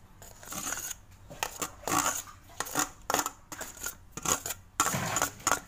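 Steel-on-steel clinks and scrapes as grated paneer and chopped onion are scraped off a stainless steel plate into a stainless steel bowl: a run of short sharp clicks and scraping noises in quick clusters.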